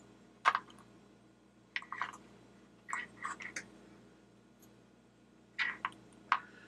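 Irregular small clicks and taps of hands handling a flashlight's wired switch and small plastic and metal parts during reassembly, the sharpest about half a second in, then scattered clusters.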